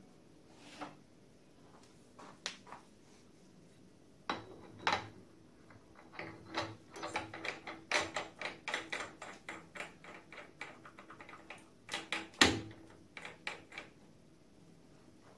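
Metal clicks and knocks of a tool holder being handled and fitted into a milling machine's spindle during a tooling change. A few separate clicks come first, then a run of quick rattling clicks in the middle, then a sharper knock near the end.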